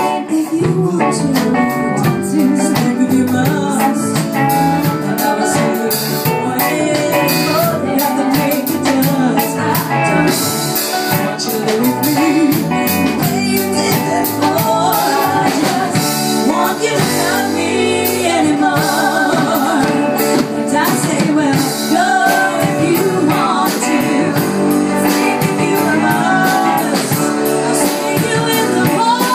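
Live band playing a song: a woman singing lead over strummed acoustic guitars.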